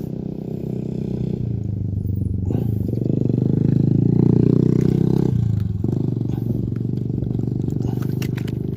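An engine running with a steady low hum, growing louder about three seconds in and easing back down about two seconds later.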